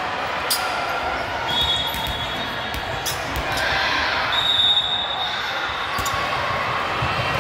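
A ball bouncing on a hardwood gym floor, a few sharp thuds a couple of seconds apart, over the chatter of a crowd in a large hall. Two short high-pitched squeaks come about a second and a half in and again near the middle.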